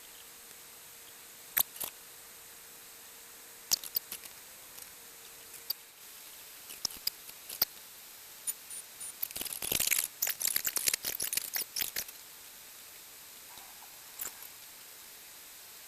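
Light clicks and rustling: a few single clicks, then a quick, uneven flurry of them about nine to twelve seconds in, over a faint steady hiss.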